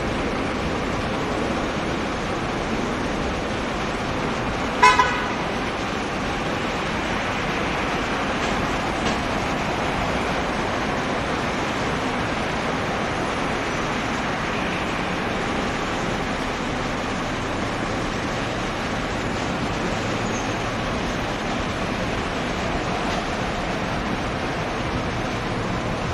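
Steady outdoor traffic noise, with one short vehicle horn toot about five seconds in.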